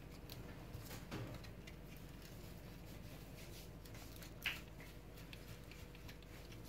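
Faint clicks and scrapes of a Phillips screwdriver turning small screws out of a plastic lamp housing, with one sharper click about four and a half seconds in.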